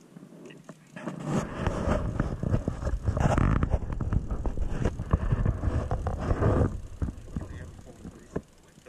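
Wind buffeting the camera microphone: a rough, fluttering rumble that rises about a second in, holds for about six seconds and dies away.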